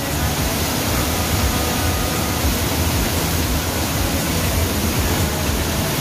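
Large waterfall roaring steadily nearby: an even rushing hiss with a deep rumble underneath.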